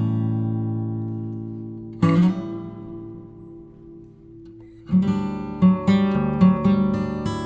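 Acoustic guitar background music: a strummed chord rings and fades, another is struck about two seconds in, and about five seconds in it moves into a livelier run of plucked notes.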